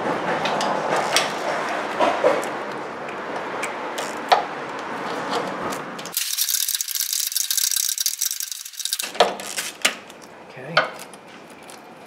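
Ratchet wrench on a long extension turning out a starter mounting bolt, with metal clicking and rattling against the underside of the car. About six seconds in comes a burst of dense, high-pitched rattling lasting about three seconds.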